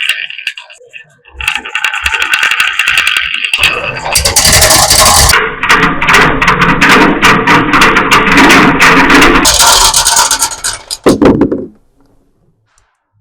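Marbles rattling and rolling down a wooden HABA marble run: a lighter run of rolling clicks, then from about four seconds in a heavy, dense clatter of many marbles at once, ending with a knock and dying away near the end.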